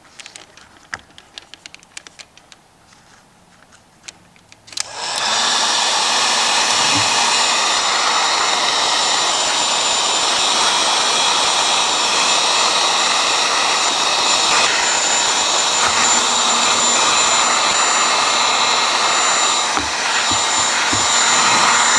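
Heat gun switched on about five seconds in and blowing steadily, shrinking heat-shrink tubing over crimped wire splices; it cuts off near the end. Before it, a few faint handling clicks.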